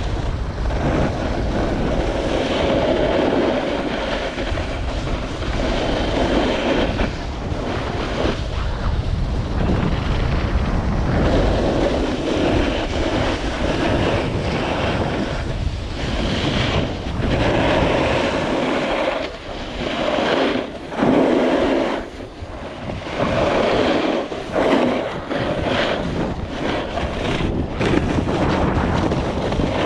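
Heavy wind buffeting the microphone during a fast downhill run, with the hiss and scrape of edges carving on packed snow that swells and fades with each turn.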